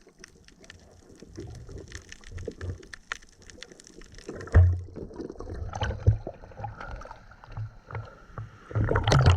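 Water sloshing and gurgling around a diver, with irregular low thumps and clicks, one sharp thump about four and a half seconds in and a louder burst of knocks near the end.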